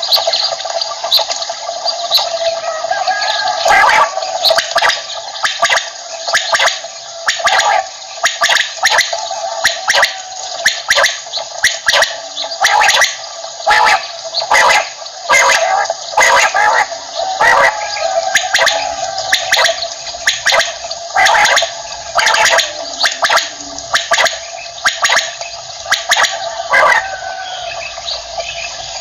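Common quail calling: a dense run of short, sharp notes, many overlapping, over a steady background of sustained tones.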